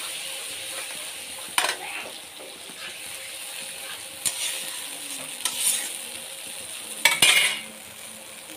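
Spice paste sizzling in oil in a metal kadai while a metal spatula stirs it, scraping and knocking against the pan every second or two, loudest about seven seconds in. This is the masala being fried down (kashano) before water goes in.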